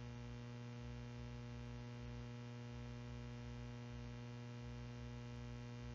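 Steady electrical mains hum with a stack of even overtones, low in level, with a faint wavering rumble underneath.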